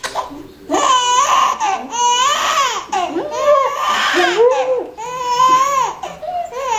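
Infant crying in a string of loud wails, each about a second long, the pitch rising and falling within each.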